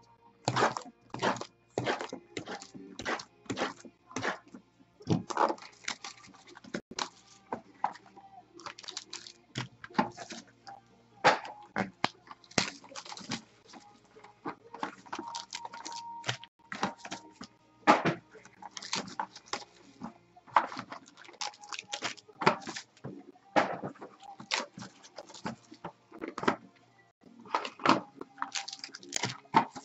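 Trading-card packaging and a cardboard box being handled and opened, a dense, irregular run of crinkles, taps and clicks.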